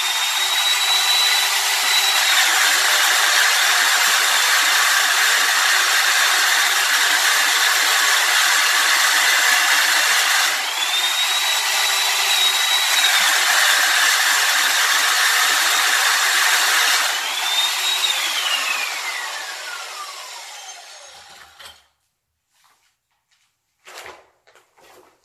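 Electric power tool grinding into a concrete floor slab, a steady loud run with a high motor whine that comes up twice. About eighteen seconds in it is switched off and its whine falls away over about three seconds. A few footsteps near the end.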